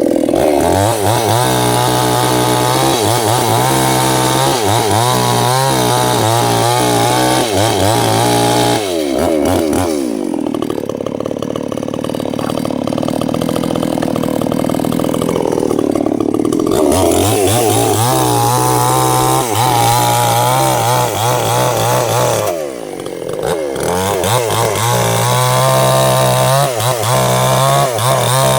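Two-stroke chainsaw running at full throttle cutting sengon wood. The engine drops to idle about 9 seconds in, revs back up about eight seconds later, dips briefly once more, then cuts at high revs again.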